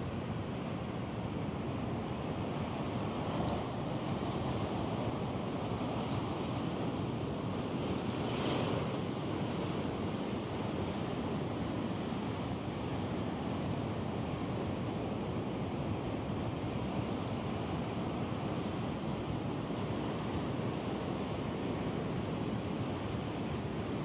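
Stock recording of ocean surf: a steady wash of breaking waves, with one wave crashing a little louder about eight seconds in.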